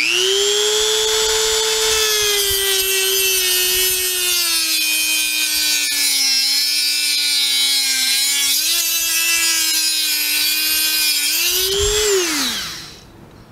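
Dremel rotary tool with a cut-off wheel spinning up to a high whine and cutting a slot into a seized soft-brass faucet trim sleeve, with a grinding hiss. The pitch sags slightly as the wheel bites, and the motor winds down about twelve seconds in.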